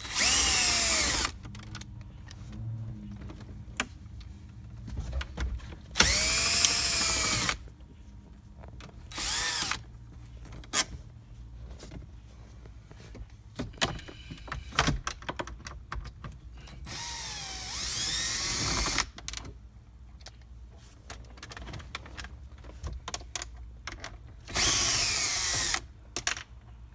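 Cordless drill backing out the 7 mm screws that hold a dashboard panel: five short runs of the motor, each half a second to two seconds long, with light clicks and handling noise between them.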